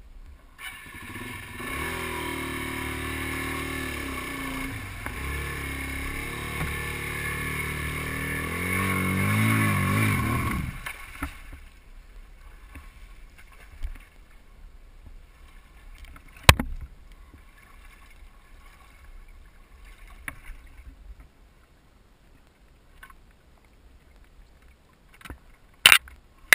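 Single-cylinder dual-sport motorcycle engine revving as the bike pushes through deep flood water, with water splashing off the wheels. The engine rises in pitch and then cuts off suddenly about ten seconds in. After that there are only faint water sounds, a sharp knock in the middle and loud splashes and knocks near the end.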